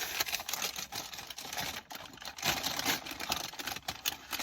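Irregular rustling and clicking of things being handled close to the microphone.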